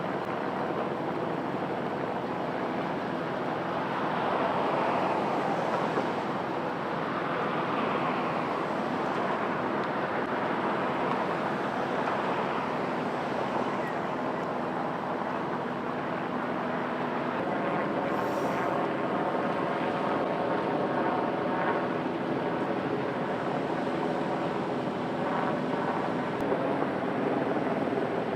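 Light single-turbine helicopter running, a steady rush of rotor and turbine noise. Its sound swells and fades in slow waves through the first half, then settles into a steadier droning tone.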